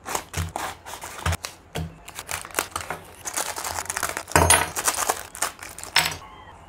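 Cardboard toy box being torn open and black plastic parts bags crinkling as they are slit and pulled open with a craft knife, mixed with sharp clicks and clinks of small Beyblade parts landing on the table.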